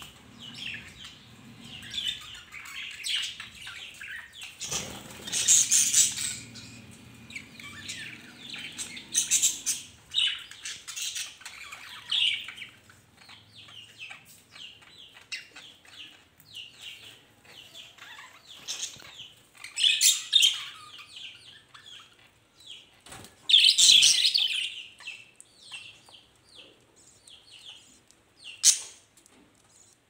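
Irregular rustling and scratching as a paint-coated leaf is pressed and rubbed onto paper and the sheet is handled, in short uneven bursts, the loudest about two-thirds of the way through.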